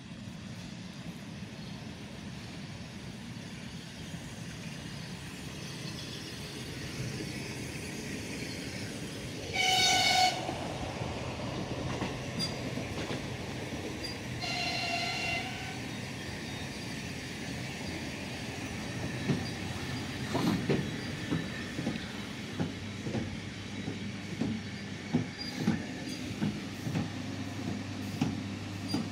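ER9T electric multiple unit pulling into a station: a steady rumble, two one-pitched horn blasts of about a second each, the first the loudest sound, then wheels knocking over rail joints as the cars roll past, with a low steady hum setting in near the end.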